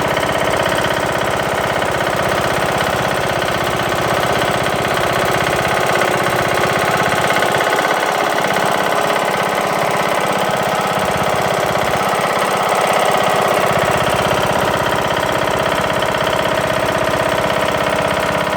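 Briggs & Stratton engine of a Craftsman LT2000 lawn tractor running steadily with a loud knocking noise, a knock that appeared after its broken camshaft and timing gear were replaced and whose cause the owner has not yet found.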